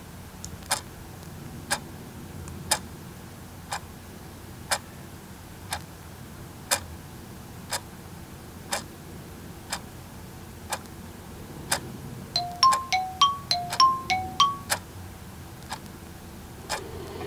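Wall clock ticking once a second. About twelve seconds in, a run of about eight short electronic beeps alternating between two pitches, with small clicks, from a coffee maker's control panel.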